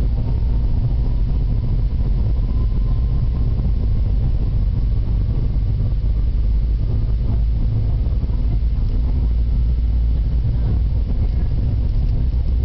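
Jet airliner engines and runway rumble heard from inside the passenger cabin as the plane rolls along the runway: a loud, steady, deep roar.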